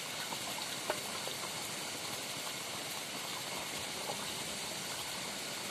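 A steady, even hiss of outdoor background noise. Over it are a few faint clicks, with one sharper click about a second in, from fingers picking food off a banana leaf.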